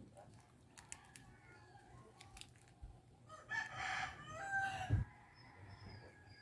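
A rooster crowing faintly, one call of about a second and a half near the middle. A few light clicks come about a second in, and a dull thump just after the crow.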